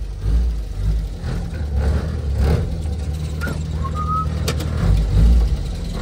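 UAZ-469B's four-cylinder petrol engine running as the vehicle is driven at low speed, swelling with throttle a moment in and again near the end. A few short clicks about the middle.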